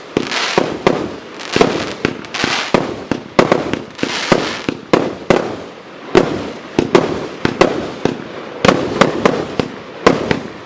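A 100-shot 25 mm firework cake firing shot after shot: sharp bangs, two or three a second, with hissing between them.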